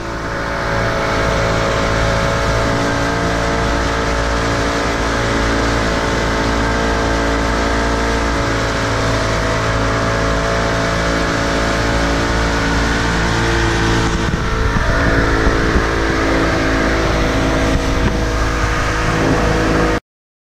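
Suzuki DT65 two-stroke outboard motor running steadily at speed, with the rush of water churning in the wake behind the hull. It cuts off suddenly near the end.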